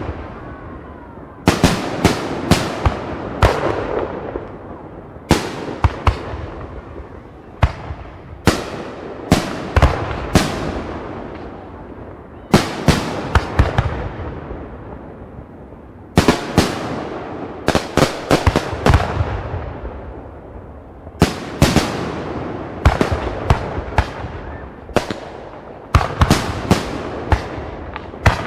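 Fireworks display: clusters of sharp bangs every three to four seconds, each volley trailing off in a fading rumble before the next.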